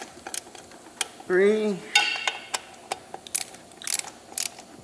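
Hand ratchet and metal tools working the front pump bolts of a 4R55E automatic transmission: scattered, irregular metal clicks and clinks, typical of bolts being run down and hand-tightened.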